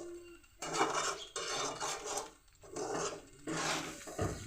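Spoon scraping through sweet rice in a pot as it is stirred and mixed, in about four separate strokes.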